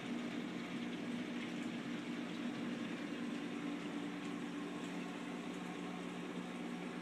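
Running saltwater reef aquarium: a steady rush of circulating, bubbling water with a low, steady hum underneath.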